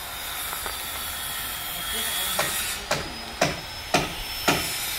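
Hammer blows on a timber roof frame, driving nails. They begin about halfway through as sharp, evenly spaced knocks, roughly two a second, with only a steady hiss before them.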